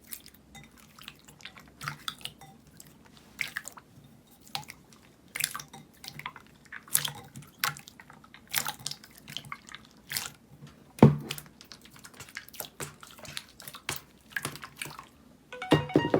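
Slime being played with by hand: a run of irregular wet clicks and small pops as it is squeezed and pulled, with one louder pop a little after the middle.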